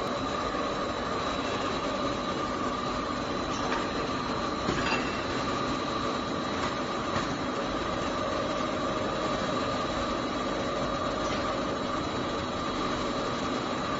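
Steady hum of industrial machinery, a punch press tended by a robot arm, with a constant high whine over it. A few light clicks and knocks come through, the clearest about five seconds in and again about seven seconds in.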